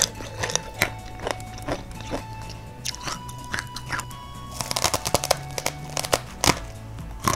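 Crispy mie lidi sticks (dry, fried flour-stick snack) being bitten off a bundle and chewed close to the microphone: repeated sharp crunches about twice a second, with a dense burst of snapping about five seconds in. Soft background music plays underneath.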